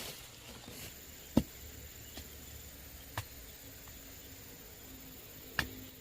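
Four sharp knocks a second or two apart, the first and the last the loudest, over a faint steady background.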